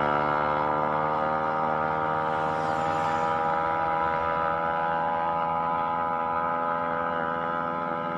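Yamaha Mio Soul scooter's single-cylinder four-stroke engine running steadily, its revs easing down slowly.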